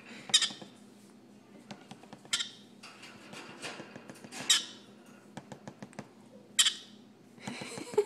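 Baby yellow-sided green-cheeked conure giving short, harsh squawks, about one every two seconds, with a quick run of light clicks between two of them.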